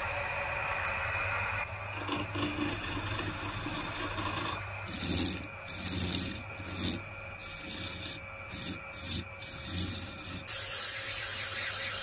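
Electric motor spinning a plywood band saw wheel, its hum steady. A hand-held tool scrapes the wheel's rim in short, uneven strokes as it is trued. Near the end, sandpaper pressed against the spinning rim gives a steady, louder sanding noise.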